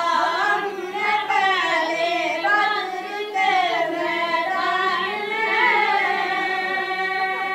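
Boys' voices singing an Urdu Islamic song with no instruments, a flowing melodic line that settles into one long held note in the last couple of seconds.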